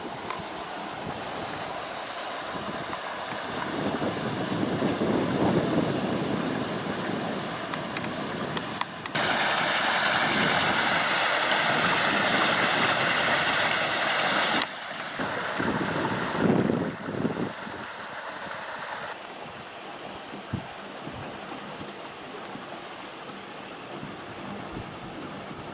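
Water rushing steadily through a low-fall culvert that drives a Hydrobine water-powered pump. It is a continuous hiss that turns much louder and brighter for several seconds near the middle, with sudden jumps in level.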